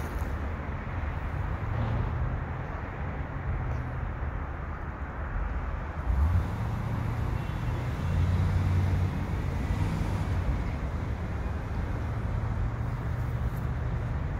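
Steady outdoor background rumble with no clear single source. It swells louder briefly about six seconds in and again around eight to nine seconds.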